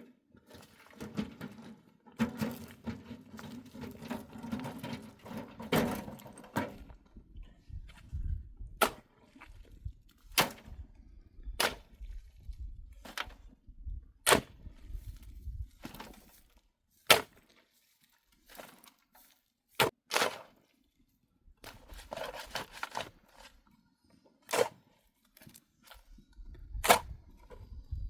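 Hand work with wood and branches: several seconds of rubbing and scraping, then a series of separate sharp knocks or snaps, each a second or more apart.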